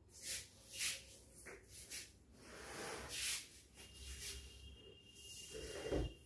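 Scuffing and shuffling noises as a heavy upholstered armchair is shifted about on a hard stone floor, in short bursts, ending in a low thump about six seconds in. A faint steady high whine comes in from about four seconds in.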